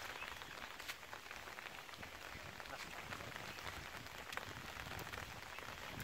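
Steady light rain falling, a dense, even pattering of drops.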